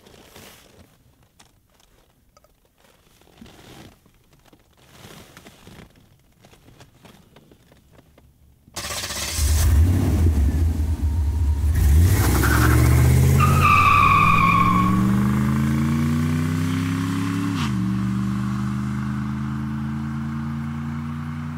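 Faint fumbling, then about nine seconds in a BMW's engine starts suddenly and revs up, its pitch rising steadily, with a short high squeal partway through. About eighteen seconds in the pitch drops sharply, then holds steady while slowly fading.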